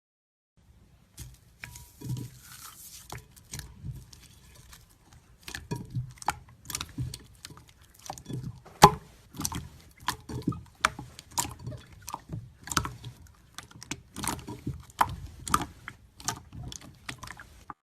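Slime being squeezed and poked by hand, giving a run of irregular wet clicks and pops, with one louder pop about halfway through.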